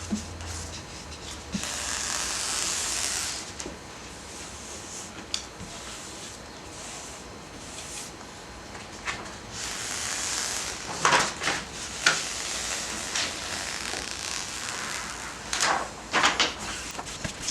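Hand work on a pinball cabinet: hissing rubbing or scraping strokes, and a few sharp knocks and clicks near the middle and near the end.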